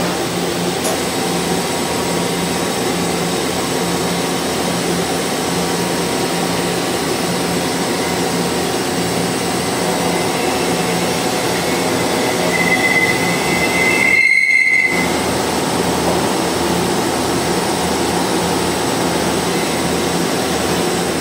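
Machine-shop machinery running with a steady, loud hum of several tones, and a high-pitched squeal rising briefly about two-thirds of the way through.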